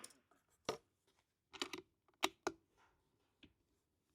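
Light mechanical clicks from handling a single-shot .22 LR bolt-action rifle: the bolt being worked and a round loaded between shots. There are five or six sharp clicks, spaced irregularly.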